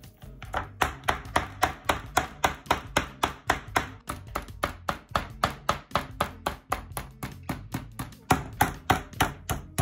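Meat mallet pounding raw chicken breasts flat on a bamboo cutting board, a quick steady run of thuds about four a second.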